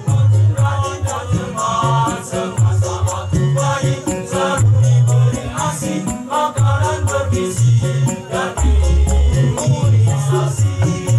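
Men's choir singing over a loud backing track with a pulsing bass line and steady shaker-like percussion.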